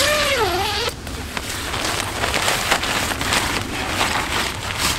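Tent door zipper being unzipped from inside: a short buzzing zip that dips and rises in pitch in the first second, then about four seconds of rasping zipper and rustling tent fabric as the flap is opened.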